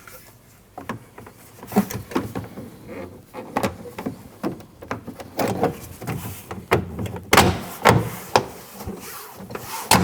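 Plastic interior trim panel being fitted to a Ford Escape liftgate: irregular knocks, rubs and clicks as the panel is handled and its four clips are pushed into their holes. The loudest hits come about seven to eight seconds in.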